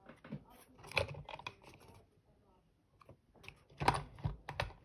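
Light clicks and taps of an OO gauge model locomotive and its tender being handled and set on a piece of display track. The clicks come in two clusters with a short pause between them.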